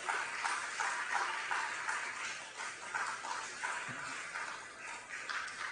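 Audience applauding: many hands clapping in a dense patter that slowly fades.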